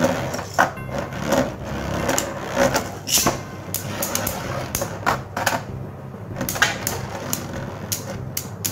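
Two Beyblade spinning tops, one of them 3D-printed, battling in a plastic stadium: a spinning whir broken by irregular sharp clacks as they collide and knock against each other.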